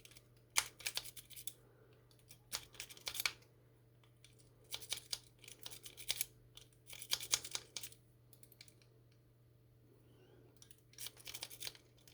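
A rake pick being worked in and out of a dimple lock's keyway, metal clicking and scraping over the pins in about six short bursts with pauses between.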